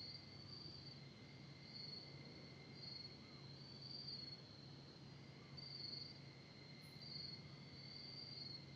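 Faint high-pitched trilling of night insects, swelling and fading in uneven pulses of about a second, over a low steady hum.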